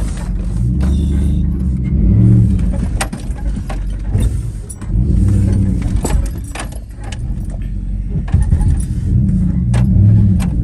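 GMC Yukon's engine pulling at low speed as the SUV crawls over boulders, its rumble swelling three times with the throttle, while loose things in the cabin rattle and knock with sharp clicks as the body lurches.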